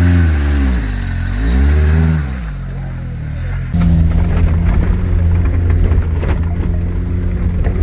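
A vehicle engine revved twice, its pitch rising and falling each time. About four seconds in, it gives way abruptly to a steady, loud, low engine drone.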